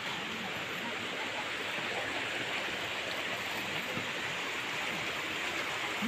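Steady rush of flowing stream water, an even hiss with no breaks.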